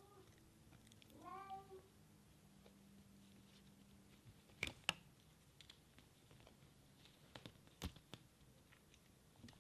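Bengal kitten giving a short, soft meow about a second in, a call to be played with. A few sharp clicks and taps follow, the loudest about five seconds in.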